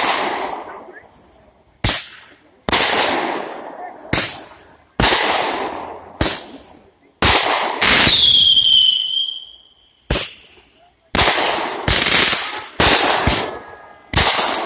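Fireworks going off in quick succession: about a dozen sharp bangs, each fading out over roughly a second. About eight seconds in, one comes with a shrill whistle that slides down in pitch.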